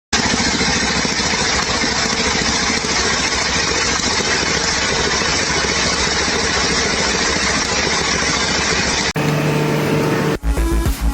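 A loud engine or motor running steadily, cutting off suddenly about nine seconds in. A short steady hum follows, then music with a pulsing beat starts near the end.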